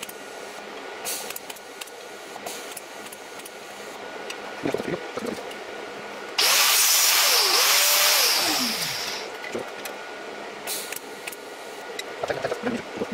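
TIG welding arc on a 3 mm stainless steel cable, melting its end into a ball: a sudden loud hiss about six seconds in that holds for a second and a half, then fades out over about a second as the current drops. A few light handling knocks come before and after it.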